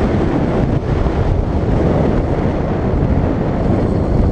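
Wind rushing over the microphone of a helmet-mounted camera on a moving motorcycle, a steady low rush with the bike's running and road noise blended in.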